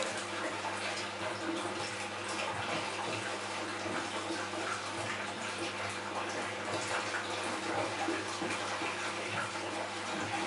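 Saltwater aquarium's circulating water running steadily, a splashing trickle of the filtration flow with a low steady hum from the pump underneath.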